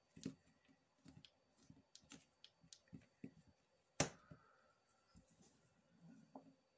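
Faint handling noises of a polymer clay stack being pressed and worked by hand on a work mat: scattered soft clicks and taps, with one sharp knock about four seconds in.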